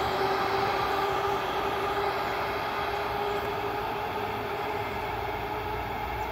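ER2 electric multiple unit pulling away along the track: a steady hum with several held tones over the rumble of wheels on rails, fading slowly as the train recedes.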